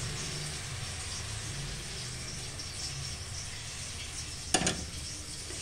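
Hot sugar syrup poured into semolina roasted in ghee in a steel kadhai, sizzling with a steady hiss. A single sharp metal clank about four and a half seconds in.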